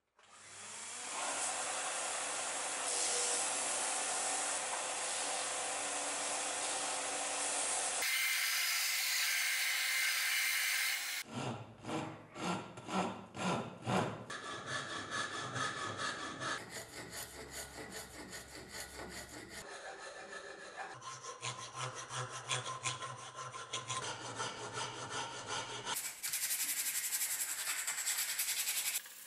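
Hand sawing and filing on a cleaver's wooden ash handle, in short stretches of rhythmic back-and-forth strokes, about three a second at their clearest. A steady machine noise, likely the belt sander, runs for the first eight seconds.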